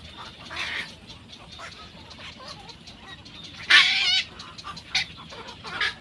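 Birds calling: a short call under a second in, a loud rapid rattling call about four seconds in, and two shorter calls near the end.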